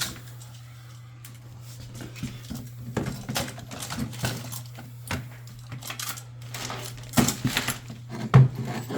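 Rummaging through a bucket of loose tools and parts: repeated clinks, clatters and knocks of small hard objects, busiest and loudest in the last two seconds. A steady low hum runs underneath.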